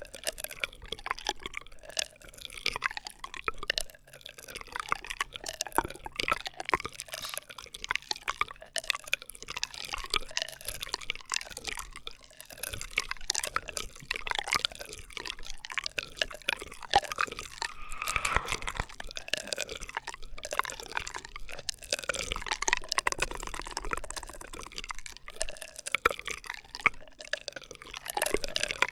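Close-miked ASMR straw sounds: a drinking straw making a continuous stream of wet, crackling pops and small squeaks.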